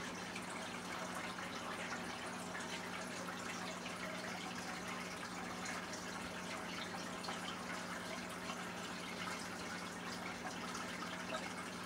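Aquarium filter running: water trickling and dripping steadily into the tank over a low steady hum.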